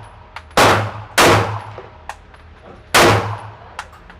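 Three pistol shots fired at an indoor range, about half a second in, just over a second in and three seconds in, each with a short echoing tail. Fainter sharp clicks fall between them.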